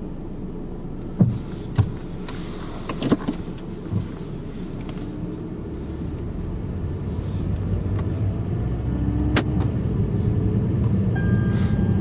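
Car driving off, heard from inside the cabin: a few clicks and knocks in the first few seconds, then low engine and road rumble that grows steadily louder as the car picks up speed.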